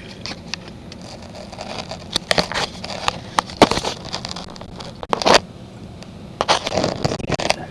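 Camera handling noise: a hand rubbing and knocking against the camera and its microphone, giving irregular scrapes, crackles and sharp clicks, over the low steady hum of the truck idling.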